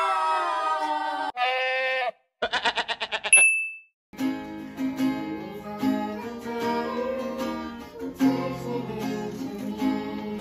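A few short sound effects: held tones, a fast warbling trill and a high ding. About four seconds in, upbeat background music with plucked strings, like mandolin and guitar, starts and keeps going.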